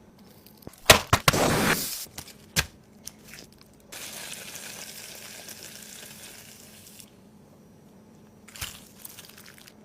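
Frying-food cooking sounds: a few sharp knocks and clatters, a burst of crackling, then a few seconds of steady sizzling hiss that fades and stops, with two more knocks near the end.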